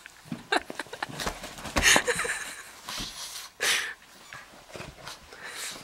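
A pug sniffing and nosing at a plush toy: short breathy puffs, two stronger ones about two and three and a half seconds in, among light knocks and rustles from the toy.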